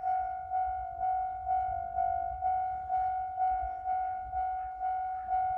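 Japanese railway level-crossing warning bell ringing in steady, evenly spaced strokes, a little over two a second, each stroke a clear ringing tone that fades before the next.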